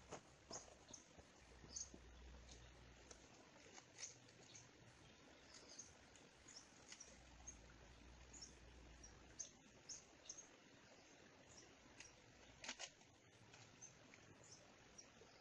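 Near silence: faint outdoor ambience with scattered small ticks and brief high chirps.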